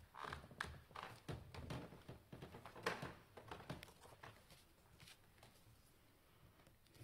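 Faint footsteps, paper rustling and small knocks as a person walks up to a lectern and handles sheets of paper, the loudest knock about three seconds in, then quiet room tone.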